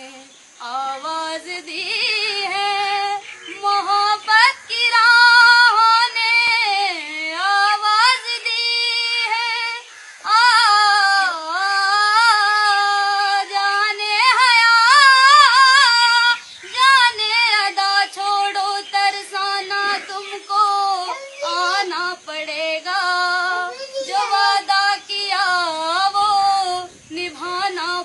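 A woman singing a Hindi film melody unaccompanied, in long held notes with a wavering vibrato. The phrases are broken by brief pauses for breath.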